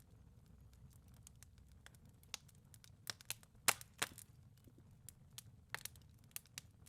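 Wood fire crackling in a fireplace: faint, irregular sharp pops and snaps, a few louder ones about halfway through.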